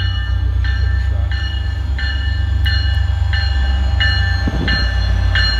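EMD F40PH-3C diesel locomotive approaching, its engine a steady low rumble under the bell, which rings about once every 0.7 seconds with strokes growing louder as the train nears.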